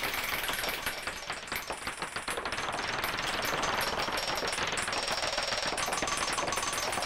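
Experimental electronic music from a Casio CZ-1000 synthesizer sequenced by a KORG SQ-1 through an Effectron II delay: a dense, rapid, noisy clatter of clicks and stutters. About a second in it thins to a choppier, quieter rattle, then settles into a steady hissing wash.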